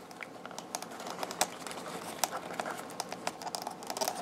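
Irregular small plastic clicks and handling noise as a nylon zip tie is fitted and pulled around the neck of a rubber balloon covering a model airplane's receiver.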